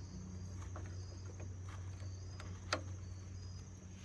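Crickets chirping faintly in short repeated high chirps over a steady low hum, with a few light clicks.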